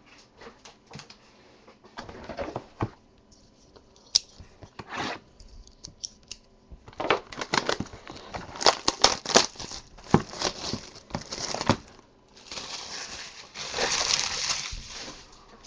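Plastic wrapping being torn and crinkled as a sealed box of trading cards is opened, with handling of the box; the crackling comes in scattered bursts, grows dense and sharp in the second half, then runs as a longer continuous crinkle near the end.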